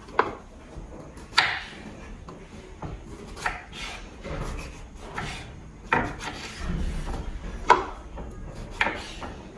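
Small kitchen knife cutting up a tomato over a wooden cutting board: scattered light knocks and scrapes on the wood, one every second or two.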